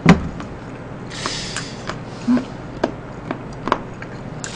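Eating sounds of a person chewing a mouthful of rice and kimchi stew: a scatter of soft clicks and mouth noises, with a brief hiss about a second in and a short hum near the middle.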